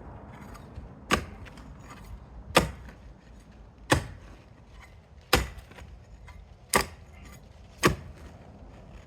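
A spade chopping down into the ground, six sharp strikes about a second and a half apart.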